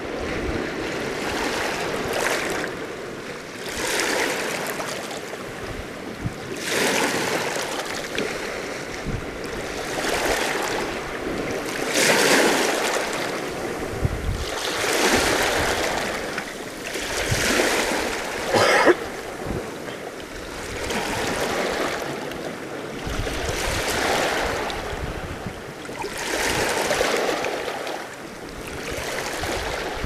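Small sea waves lapping and washing against a rocky shore at the waterline, one wash every two to three seconds, with a sharper splash a little past halfway.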